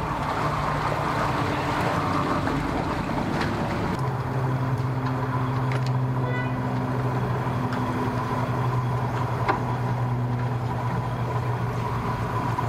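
Steady engine hum: a boat's outboard motor idling at first, then, from about four seconds in, a pickup truck's engine running as it tows a boat trailer off the ramp.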